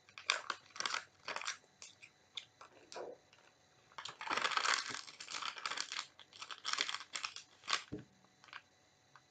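Plastic snack packet of Oriental Super Ring cheese rings crinkling and rustling in short bursts, with crunching of the snack, busiest about four seconds in. A low thump near the end.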